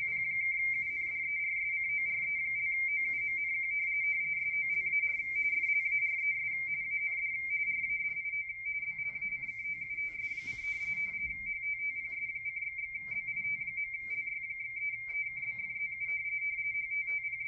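W1AW's RTTY (radio teletype) signal heard through a Yaesu FTdx10 transceiver: a steady warble that flips rapidly between two close tones just above 2 kHz as the Baudot characters are sent. About eight seconds in it gets quieter as the AF gain knob is turned down, and there is a brief hiss about ten seconds in.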